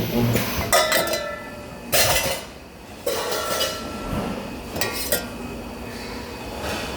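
Spot-welding work in a factory: sharp metal clanks and clinks, a short hiss about two seconds in, and some metallic ringing over a steady machinery background.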